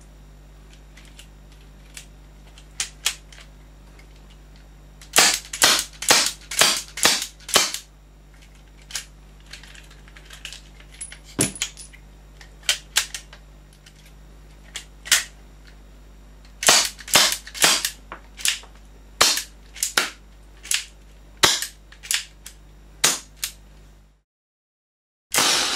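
Sharp mechanical clicks from a Marushin Mateba airsoft revolver replica being worked by hand: quick runs of about six clicks about a quarter of the way in and again past the halfway point, with single clicks between. Right at the end, after a brief gap, comes one louder crack with a short ringing tail.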